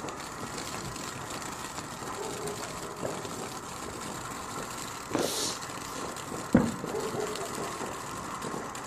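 Steady outdoor background noise, with a short hiss about five seconds in and one sharp bang about a second later, the loudest moment.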